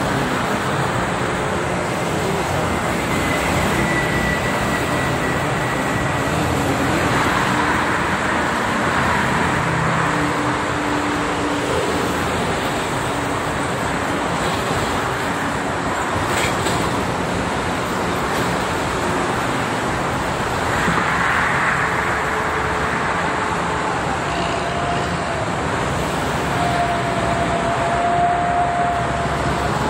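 Steady traffic noise from a multi-lane toll expressway: the tyres and engines of cars, trucks and buses passing in both directions. It swells twice as vehicles go by close.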